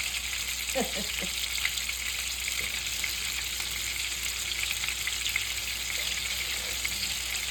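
Food frying in oil in a skillet: a steady sizzle with dense fine crackling.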